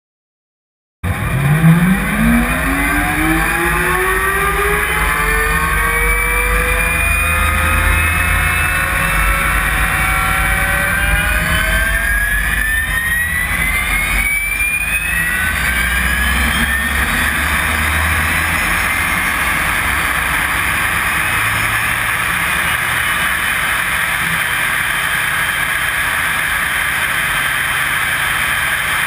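Jet drag car's turbine engine spooling up: a whine that climbs steadily in pitch, starting about a second in, then holding as a steady, loud rushing noise.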